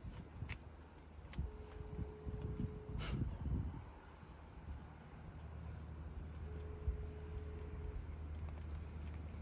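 Telephone ringback tone, a single steady tone heard twice for about a second and a half each time, with a long pause between: a call ringing out on a speakerphone, matching the Spanish ringing pattern. Crickets chirp steadily throughout, and a few soft clicks and a dull thump come around the first ring.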